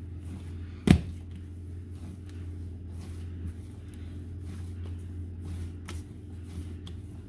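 Flour-tortilla dough being kneaded by hand on a granite countertop: soft pressing and pushing with scattered faint knocks, and one sharp knock about a second in. A steady low hum runs underneath.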